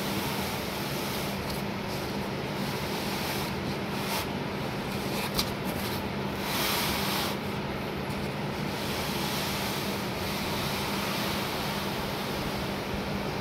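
Steady background hum and hiss, like a running air conditioner or fan, with a single click about five seconds in and a brief swell of rustling hiss a little later.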